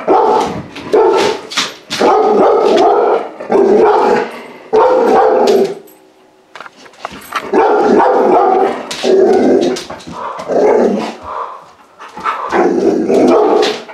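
Puppy barking in repeated loud volleys, with a pause about six seconds in.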